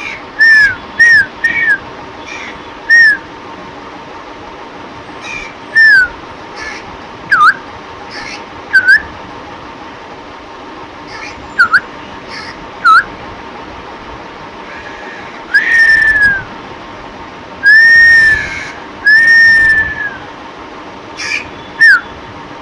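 A series of short, clear whistle-like calls, each arching or dipping in pitch, coming singly and in quick pairs, with three longer calls that fall in pitch in the second half.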